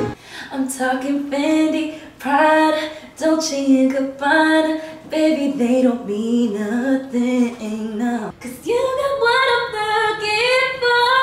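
A woman singing a melodic line with little or no accompaniment. About eight and a half seconds in, a new phrase starts higher and is held longer.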